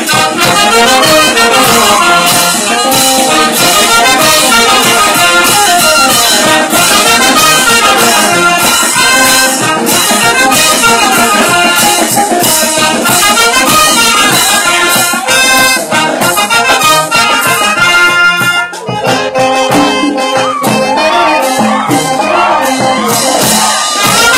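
Live festival band music with brass over busy percussion, loud and continuous, with a brief dip about three quarters of the way through.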